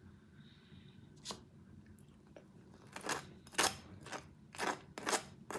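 Short crunching sounds from a toasted bagel, close to the microphone: one about a second in, then about six in quick succession from about three seconds in.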